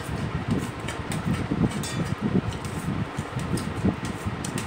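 Steady fan-like air noise with an irregular low buffeting on the microphone, and a few faint short clicks of eating by hand from a steel plate.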